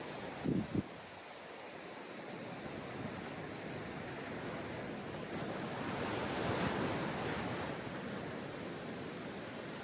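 Sea surf washing onto a beach, a steady hiss that swells as a wave breaks about six to seven seconds in. Two brief low thumps sound about half a second in.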